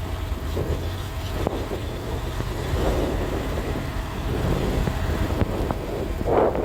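Heavy diesel engine running steadily with a low rumble, with a short louder noisy burst near the end.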